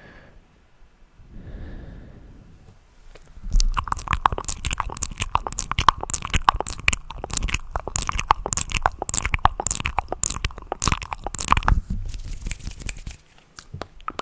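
Close-miked ASMR trigger sounds: after a couple of soft breaths, a dense run of fast, crackling clicks starts about three and a half seconds in and stops shortly before the end.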